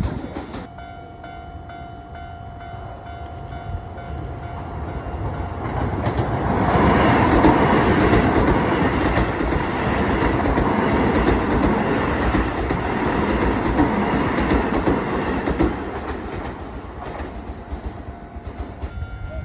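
A Keisei electric train passing over the level crossing, its wheels clattering over the rails, loudest from about 6 to 16 seconds in and then fading. Under it the crossing's warning bell rings in a steady repeating pattern.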